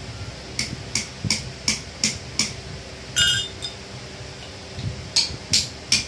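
Small hammer striking a steel locking piece on a steel block to bend it for the flour mill stone's fitting: six quick metal-on-metal blows at about three a second, a ringing metal clink about three seconds in, then three more blows near the end.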